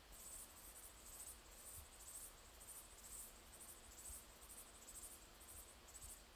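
Faint, very high-pitched insect chirping, repeating about twice a second over near-silent background.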